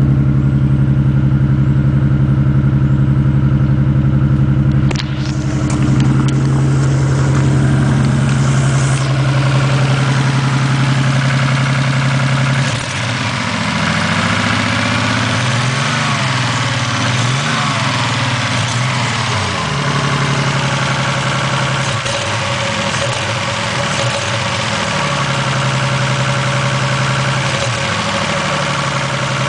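Toyota Supra's 7M-GTE turbocharged inline-six running with a misfire. It holds a steady speed at first, changes abruptly about five seconds in, and in the second half is revved up and down repeatedly.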